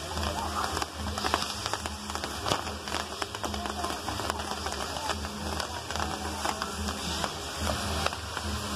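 Fireworks burning on a lattice fireworks tower: a dense, continuous crackle of many small sharp pops over a steady rushing hiss of sparks.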